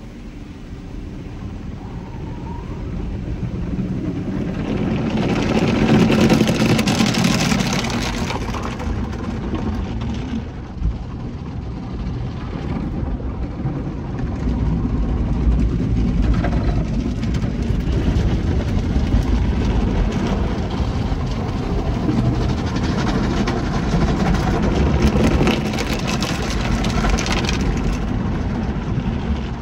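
Automatic car wash heard from inside the car: water spray and spinning cloth brushes scrubbing over the windshield and body, a dense rushing noise with a low rumble. It swells about six seconds in and again near the end.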